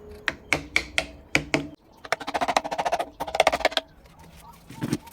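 A carving chisel struck with a mallet into wood, giving sharp wooden knocks. Several separate knocks come first, then a fast run of light taps about two seconds in, and a couple of heavier knocks near the end.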